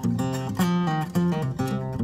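Acoustic guitar music, notes plucked in quick succession with a moving bass line.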